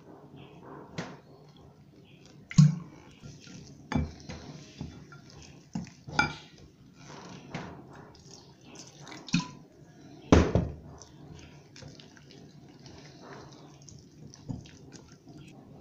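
Water poured into a glass bowl of flour and spices, then a wire whisk beating the batter, its tines scraping and clinking against the glass. The clinks come irregularly, the loudest about two and a half and ten seconds in.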